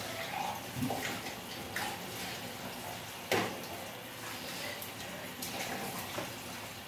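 Sugar syrup boiling hard on high heat in a wide pan as chhena balls for rasgulla are dropped in one by one. A few short sharp plops stand out over the bubbling, the loudest just past three seconds in.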